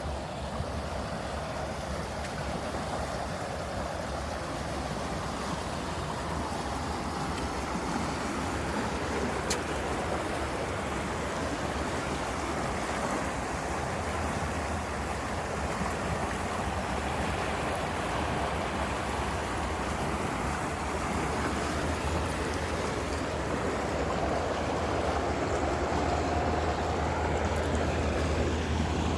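Water rushing steadily, a stream flowing, with a low rumble underneath that grows louder near the end.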